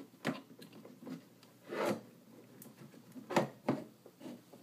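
Handling noise while an aquarium circulation pump is switched back on: a few short scrapes and knocks, the longest a rasping scrape about two seconds in.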